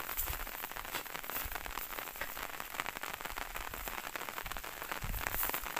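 Rain pattering on a field of young sugarcane, a steady dense crackle of drops.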